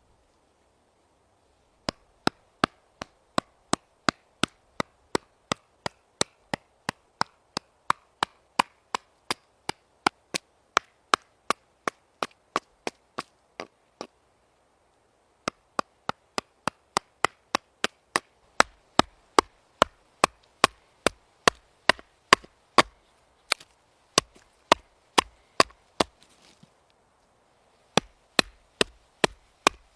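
Knife chopping on a wooden cutting board: quick, even strokes about two or three a second, in a long run that pauses briefly about halfway and again shortly before the end.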